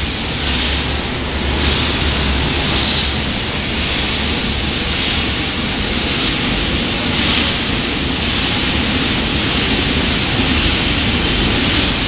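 Puffed corn snack processing machinery running: a loud, steady rushing noise over a low motor hum, from rotating seasoning drums tumbling the snacks and their electric motors and blowers.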